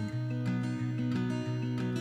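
Background music: acoustic guitar strumming in a steady rhythm, an instrumental stretch with no singing.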